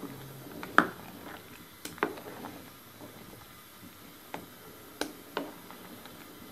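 A spoon stirring sliced turnips in water in a steel pot, knocking against the metal pot several times with sharp, irregular clinks, the loudest about a second in.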